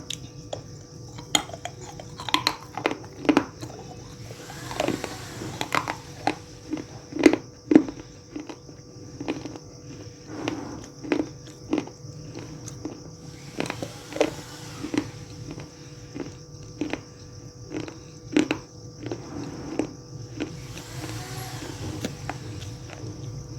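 Crunchy baked clay being bitten and chewed close to the microphone: irregular sharp crunches, the loudest bites about seven seconds in and again near eighteen seconds.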